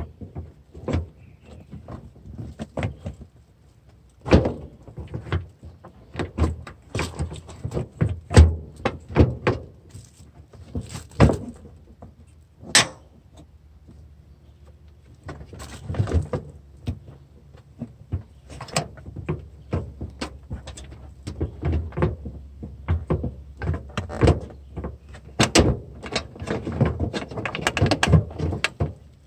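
Irregular clicks, knocks and rattles of hands handling plastic parts and a wiring harness with its rubber boot in a car's engine bay, with a quieter spell about halfway through.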